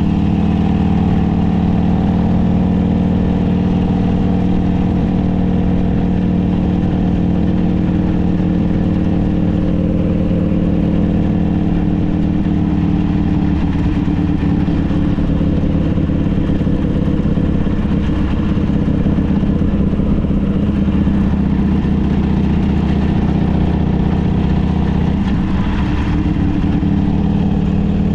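Harley-Davidson trike's V-twin engine running at a steady pitch.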